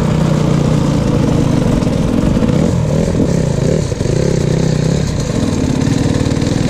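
Single-cylinder two-stroke engine of a KTM 300 XC-W dirt bike running close up under changing throttle, with a brief drop in throttle about four seconds in.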